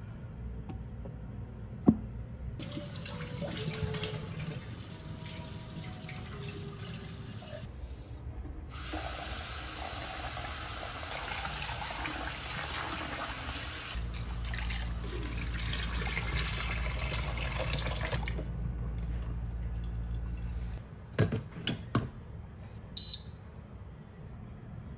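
Kitchen tap running into a stainless steel sink, twice for several seconds, as rice is rinsed by hand in a rice cooker's inner pot. Near the end come a few knocks and a short electronic beep as the rice cooker's button is pressed.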